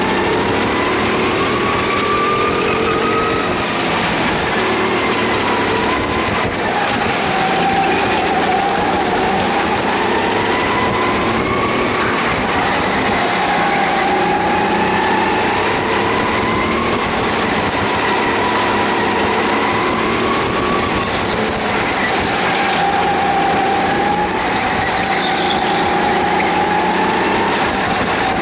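Go-kart engine heard from on board the kart, its pitch climbing over a few seconds as it accelerates and dropping back as it lifts off for corners, again and again, over steady wind and road noise.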